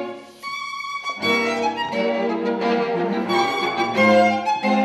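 String quartet playing Jean-Baptiste Vuillaume's matched 1863 'Evangelists' instruments (two violins, viola and cello): a single held violin note, then the full quartet comes in with sustained bowed chords about a second in.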